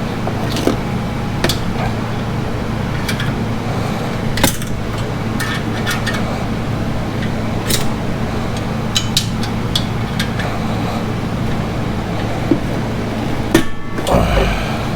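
Sharp metallic clicks and taps of hand tools on an exhaust spring and heat shield, scattered irregularly, over a steady low hum. A rumble of handling noise near the end.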